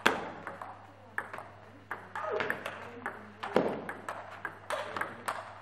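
Table tennis rally in doubles: the ball clicks sharply off rackets and table in quick, irregular succession, over a dozen hits.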